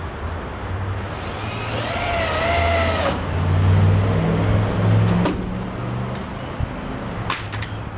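A power drill runs for about two seconds, its motor whine wavering in pitch, then stops abruptly. A few sharp clicks follow, over a steady low rumble.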